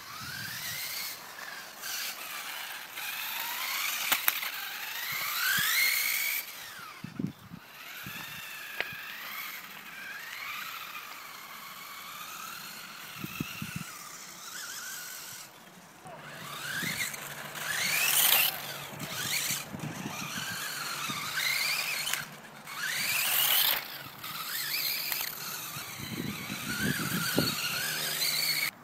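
Electric motor of a radio-controlled toy buggy whining, its pitch gliding up and down again and again as the car speeds up and slows. There are a few sharp knocks in the first half.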